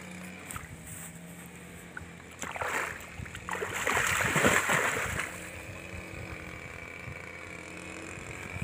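A hooked patin (pangasius catfish) thrashing and splashing at the water's surface beside the bank, in a short burst about two and a half seconds in and a longer, louder spell around four to five seconds in.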